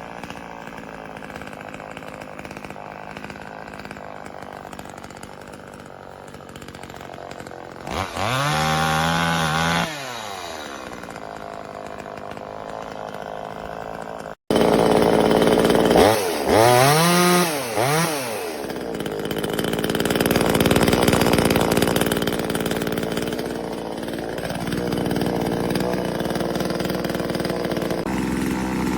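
NEO-TEC 25.4cc two-stroke top-handle chainsaw engine running, with one short rev about eight seconds in. After a brief drop-out come several quick revs, and then it runs on louder at higher speed.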